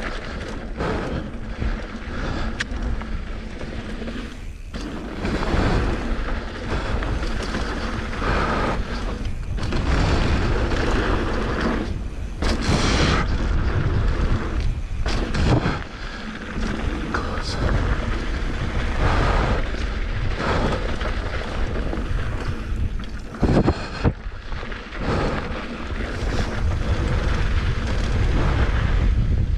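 Wind buffeting the microphone of a mountain bike's point-of-view camera on a fast descent, over the rumble of tyres on a rough dirt trail. Repeated knocks and clatter come as the bike hits bumps and rocks.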